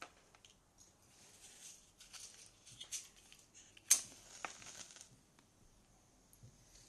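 Small scratchy handling noises of a matchbox, then a match struck on it about four seconds in: one sharp scrape followed by about a second of hiss as it flares.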